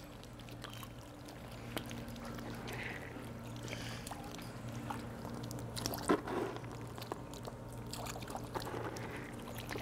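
Water sloshing and trickling as alligators move through a shallow pool, with a few small clicks and splashes, the sharpest about six seconds in, over a steady low hum.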